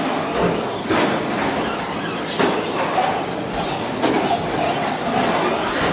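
Radio-controlled short course trucks racing: a steady whir of motors and tyres on the track surface, with a few short knocks.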